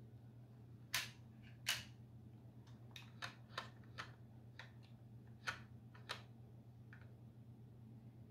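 A plastic model railway coach handled in the hands: a string of about ten light, sharp clicks and taps as it is turned over and its bogies are touched, the loudest two about one and nearly two seconds in. A faint steady low hum underneath.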